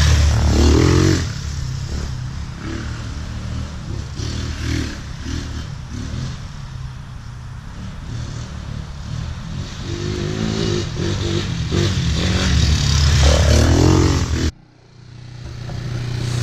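Tornado 250cc Chinese quad's engine running while riding, revving up and easing off several times, loudest near the start and again toward the end, with scraping and clattering. Near the end the sound cuts off abruptly, then the engine comes back in, running steadily at a fast idle.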